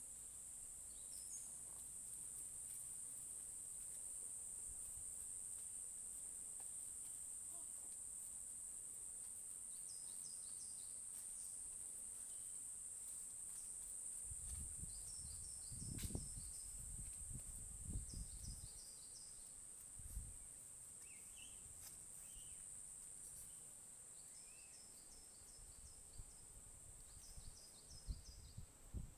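Steady high-pitched insect drone, with a bird giving short quick runs of high chirps every few seconds. From about halfway through there are several low thuds and rumbles.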